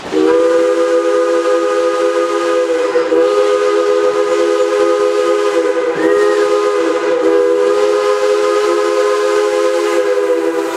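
Steam locomotive's chime whistle blowing one long blast, several notes sounding together as a chord, starting abruptly and held steadily, wavering briefly a couple of times along the way.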